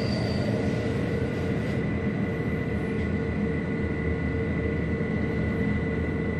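Rhaetian Railway Bernina line train heard from inside a passenger car while running: a steady rumble of wheels on rail with constant high whines laid over it.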